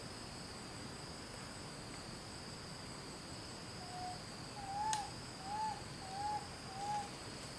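Steady high-pitched drone of forest insects, with a run of five short hooting call notes from an animal starting about four seconds in, each note rising then falling in pitch. The calls are the loudest part, and a faint sharp click comes with the second of them.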